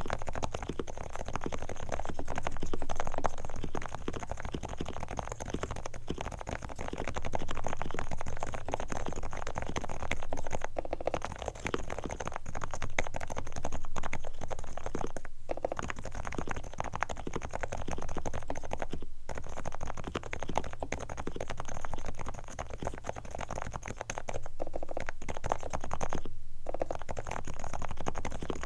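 Typing on a Realforce R4 keyboard with Topre switches, fully lubricated with dry and wet lube: a dense, continuous stream of keystrokes with a few brief pauses.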